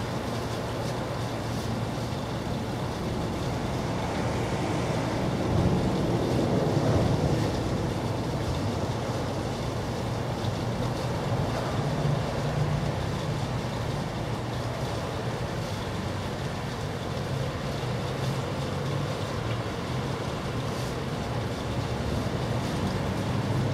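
Steady low background rumble of outdoor ambience, like distant traffic, swelling slightly around six seconds in.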